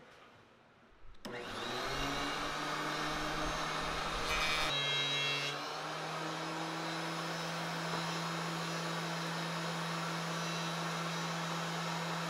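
DeWalt benchtop thickness planer switched on about a second in, spinning up to a loud, steady machine whine. A board is run through the cutterhead for the next few seconds with a coarse rumble, then the planer runs on unloaded, a touch higher in pitch.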